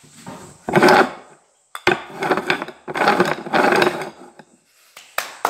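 Rubbing and scraping of objects being handled by hand, in three short bursts, with a sharp click near the end.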